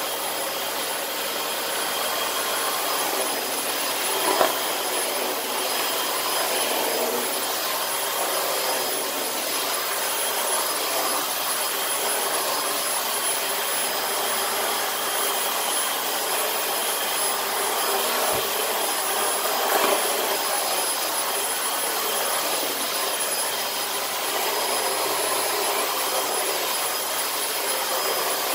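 Dyson DC18 Slim upright vacuum cleaner running steadily: a constant motor whine over the rush of air. Two brief knocks, about four seconds in and near twenty seconds in.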